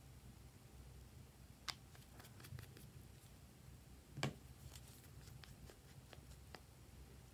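Near silence with a few faint clicks and taps from a small plastic toy being handled, the loudest a single knock about four seconds in.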